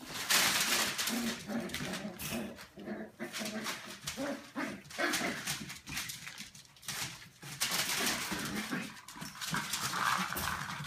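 Australian Terrier puppies playing together, giving many short, high yips and whimpers among scuffling and knocking noises.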